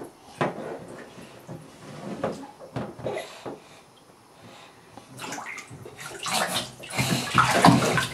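Bathwater splashing and sloshing in a bathtub as a baby and a small child play in it, in scattered small splashes at first and busier, louder splashing from about five seconds in.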